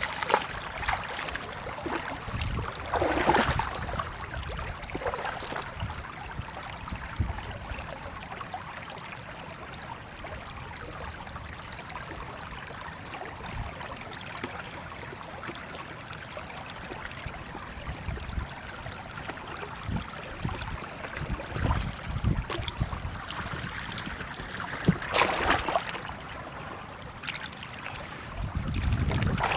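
Shallow water trickling and sloshing, with a few louder splashes about three seconds in and again near the end.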